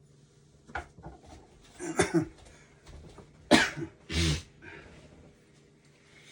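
A person coughing and clearing the throat in a few short bursts, the loudest about three and a half seconds in.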